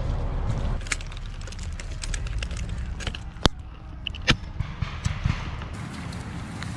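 Rustling and scuffing of soldiers' gear and footsteps in forest undergrowth and leaf litter, with a low rumble in the first second and two sharp clicks in the middle.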